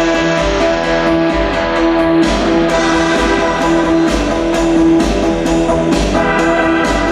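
Electronic music played live on synthesizers: sustained synth tones over a sequenced rhythmic pattern, with a low bass pulse about once a second.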